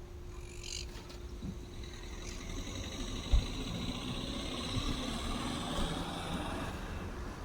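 Birds chirping in trees over a low rumble that grows louder from about three seconds in, with a single sharp thump just after.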